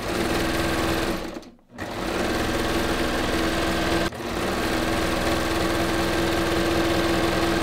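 Serger (overlock machine) sewing a narrow three-thread overlock stitch, serging elastic onto the edge of knit fabric at a fast, steady hum. It stops briefly about a second and a half in, then starts again and runs on.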